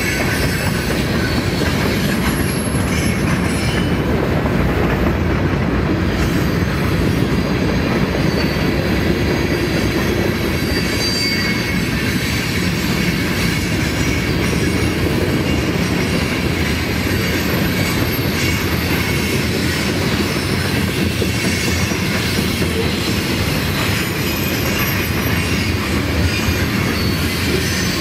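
Freight train cars rolling past close by at a steady speed, the wheels rumbling and clattering over the rails. Short high wheel squeals come and go now and then.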